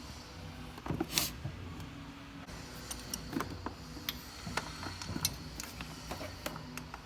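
Tools and ignition-coil parts being handled in an engine bay: scattered clicks and light knocks, the loudest about a second in, over a faint low hum.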